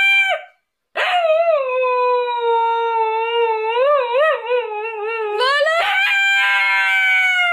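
A husky howling in long drawn-out calls. A brief gap comes just before the first second, then a long howl that sinks in pitch and wavers up and down near its end, followed by another higher howl a little before the end.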